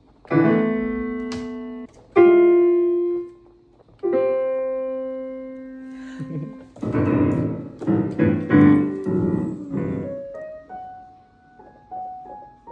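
Digital piano: three held chords ringing out one after another, then a dense jumble of many keys struck together as a cat paws the keyboard, then a short run of single notes stepping up and down near the end.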